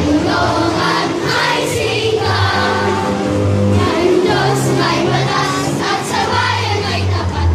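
A large group of schoolchildren singing together like a choir, over accompaniment with held low bass notes.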